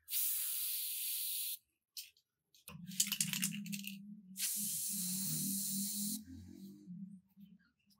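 Red spray paint hissing onto an axe handle in two long hisses, the first about a second and a half, the second nearly two seconds, with a rattle between them. A low steady hum runs under the second half.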